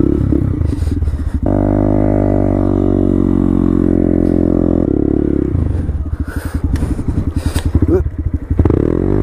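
Small motorcycle engine as the bike pulls away through snow: revved up about a second and a half in and held high and steady for about three seconds, then dropping back to an uneven, pulsing run, with a short rev up and down near the end.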